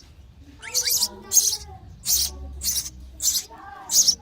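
Sparrow nestlings begging for food with short, high, repeated chirps, about six in a row, roughly one every two-thirds of a second.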